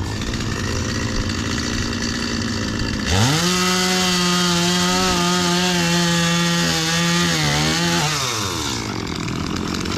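Two-stroke chainsaw running at idle, then throttled up about three seconds in to a high, steady rev held for about five seconds, then released so the pitch falls back toward idle.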